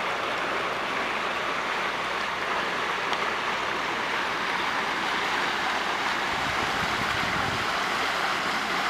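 Steady rush of running water, with a brief low rumble of wind on the microphone about six seconds in.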